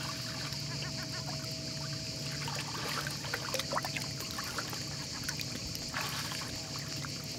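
Shallow lake water lapping and trickling over pebbles, with small splashes and drips from a dog wading through the shallows, most busy around the middle.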